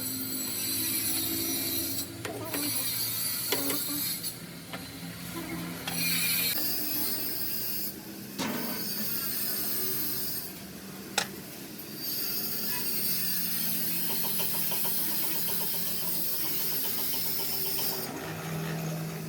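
Welding gas hissing in repeated bursts that start and stop as the gas supply is checked, with a couple of sharp metallic clicks between them.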